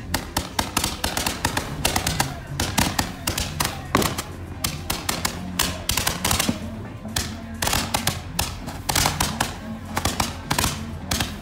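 A 196-shot Roman candle barrage firing rapidly: a continuous run of sharp pops, several a second, as the tubes launch their stars, with background music underneath.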